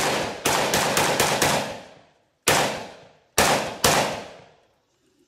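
SKS semi-automatic rifle (7.62×39mm) with a cut-down, threaded barrel being fired: a quick run of shots in the first second and a half, then three more single shots in the middle, each followed by a ringing tail.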